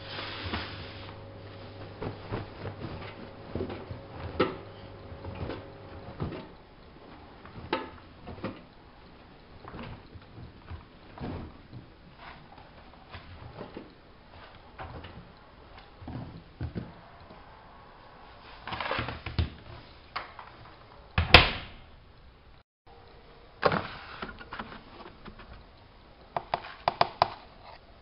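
Hanseatic HWM814A3D washing machine being handled and set up: a steady hum that stops about six seconds in, then scattered clicks and knocks, one loud thump about twenty-one seconds in, and quick runs of clicks near the end.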